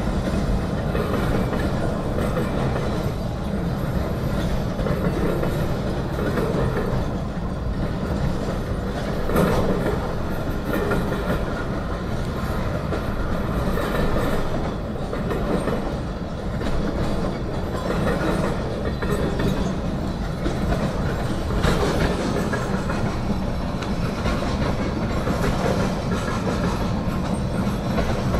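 Freight cars of a CSX train rolling past at a grade crossing: a steady rumble of steel wheels on rail with repeated clickety-clack over the rail joints and a few louder clanks, about ten and twenty-two seconds in.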